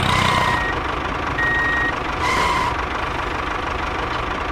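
Three short electronic beeps, about a second apart, like a vehicle's reversing alarm, over a steady hiss. A low engine-idle drone fades out within the first half second.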